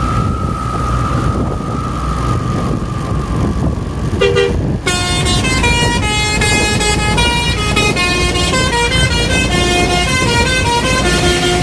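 Basuri telolet horn on a medium-size bus playing a quick melody of changing notes, starting about five seconds in after a short blip. A low engine rumble runs underneath.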